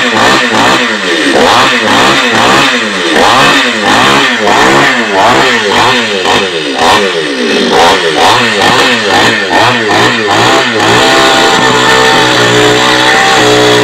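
Two-stroke chainsaw engine revved over and over, its pitch rising and falling about twice a second; about eleven seconds in it settles into a steady high-speed run.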